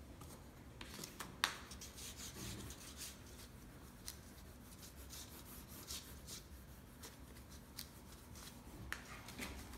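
Wooden spoon rubbed in circles over the back of a sheet of paper laid on an inked relief-print plate, a soft, faint rubbing with a few light ticks, burnishing the ink off the plate onto the paper.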